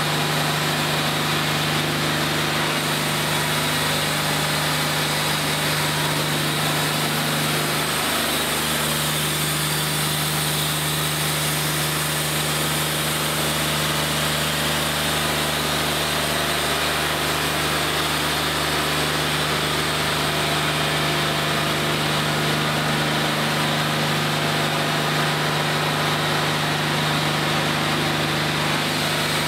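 Wood-Mizer LT40 hydraulic portable band sawmill running steadily at an even pitch while its band blade saws a board off a squared cant.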